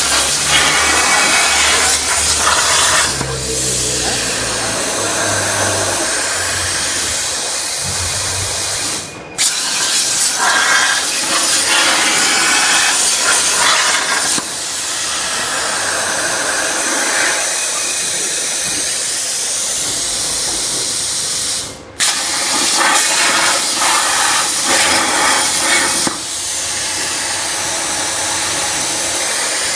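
CNC plasma torch cutting 1.5 mm stainless steel sheet: a loud, steady hiss of the arc and air jet. It cuts off sharply twice, about 9 and 22 seconds in, and starts straight up again each time, as the arc stops and restarts for a new cut. Faint whines rise and fall in pitch under the hiss.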